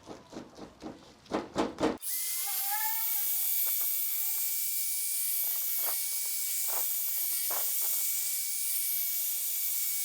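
A power tool spinning a soft microfiber polishing pad starts up about two seconds in, rises in pitch and then runs steadily with a high whine, buffing sealant onto a headlight lens. Before it starts there are a few rhythmic strokes, about three a second.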